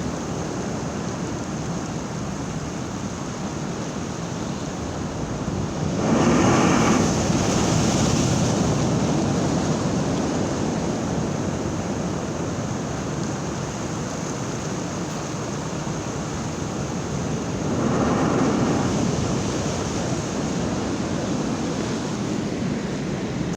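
High sea surf: a steady wash of waves with two big breakers crashing, the first about a quarter of the way in and the second about three-quarters through.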